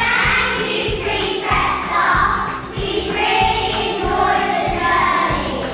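A group of young children singing together over instrumental backing music.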